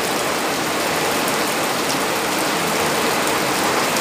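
Steady rain: an even, unbroken hiss.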